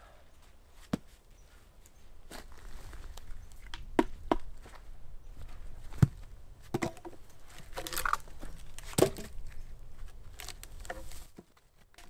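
Dry dead branches cracking and snapping as they are broken off a fallen log, about one sharp crack a second, with rustling and crunching of brush in between.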